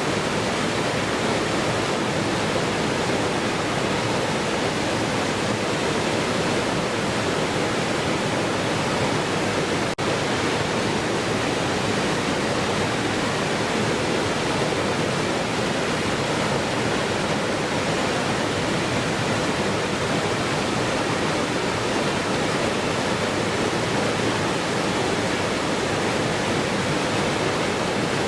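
Waterfall: steady, even rush of falling water, with a brief tiny dropout about ten seconds in.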